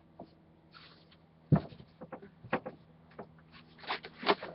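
Wooden shelf boards knocking and clunking as they are set onto the shelf's framing brackets: one sharp knock about a second and a half in, then scattered lighter clicks and taps.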